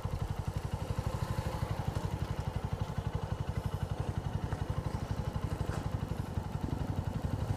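Motorcycle engine idling, a steady run of rapid, even pulses.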